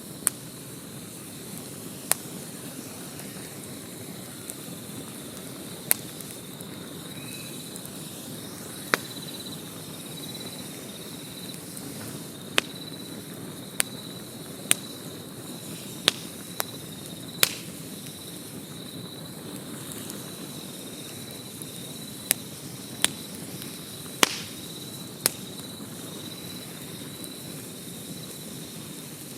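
Wood campfire crackling, with sharp pops at irregular intervals, a few every several seconds, over a steady low hiss. An insect, such as a cricket, trills steadily in the background.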